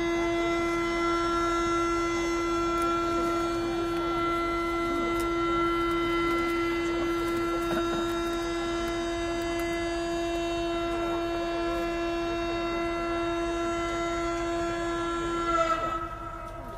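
A horn sounding one long, steady tone at a single pitch, cutting off about fifteen seconds in.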